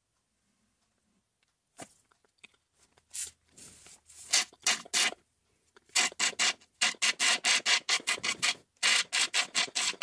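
Plastic straw rasping in a small plastic cup at the last of a fizzy candy-soda foam. A few scattered strokes come first, then from about six seconds in a quick run of rasps, about four or five a second.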